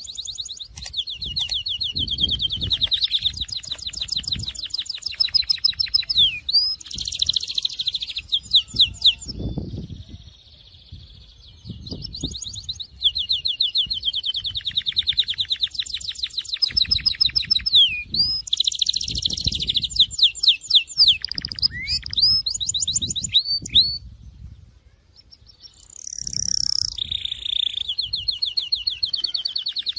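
Canary singing: long rolls of rapid, evenly repeated high notes, with sliding whistles between the rolls. The song breaks off briefly twice, about a third of the way in and again near the end.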